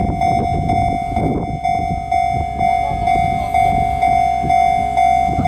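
Japanese railway level-crossing warning bell ringing continuously, a steady electronic clang repeating about twice a second.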